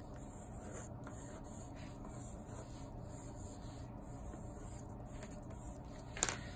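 Pencil scratching and rubbing on paper in short sketching strokes, drawing kelp stalks and leaves. A single sharp tap about six seconds in.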